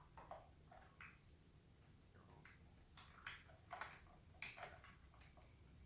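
Near silence with faint, irregular small clicks and ticks.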